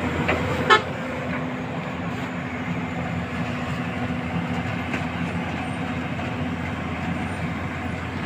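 Hyundai crawler excavator's diesel engine running steadily with a constant droning hum, and one sharp knock just under a second in.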